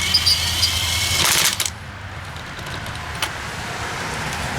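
Ridgid cordless impact wrench running for about a second and a half: a high motor whine, then a brief rapid hammering rattle that stops suddenly. A single click follows near the end.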